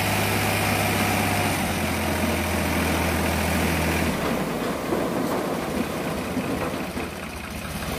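Diesel tractor engine running steadily while its hydraulic tipper trolley dumps a load of earth. The engine's low hum drops away about four seconds in, leaving the rough rush of soil and clods sliding off the raised bed.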